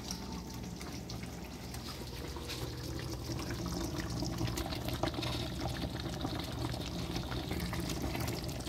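A pot of fish soup simmering on the stove, its broth sloshing and bubbling as chopped cilantro mix is dropped in and stirred with a wooden spoon. The liquid sounds get a little louder about three seconds in.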